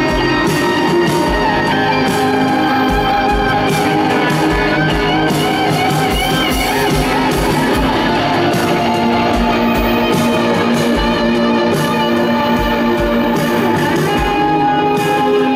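Live rock band playing an instrumental passage: electric guitars over a drum kit, with a string section of cello and violins. A wavering, vibrato-like line sounds about five to seven seconds in.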